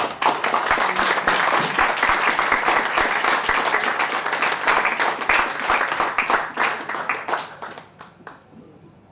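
A small group of seated guests applauding, many hands clapping together, dying away near the end.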